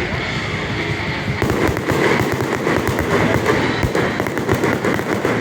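Fireworks going off in a rapid, dense string of pops and bangs.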